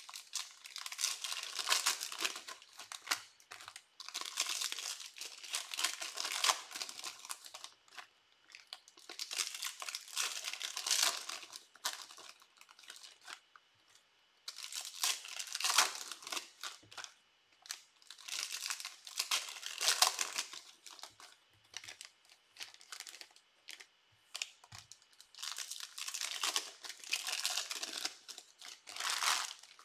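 Trading card pack wrappers being torn open and crinkled by hand, in about seven bursts of crinkling and tearing a second or few long with short pauses between.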